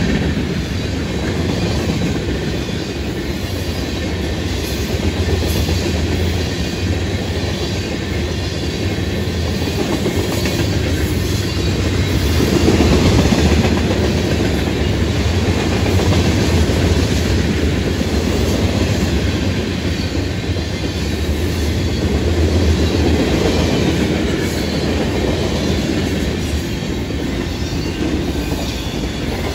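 A BNSF manifest freight train's autorack cars rolling past at speed, a continuous loud rumble and rattle of steel wheels on rail.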